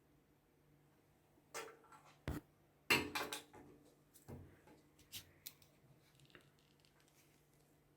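A leather dog collar being handled, giving a few irregular clicks and knocks, the loudest about three seconds in.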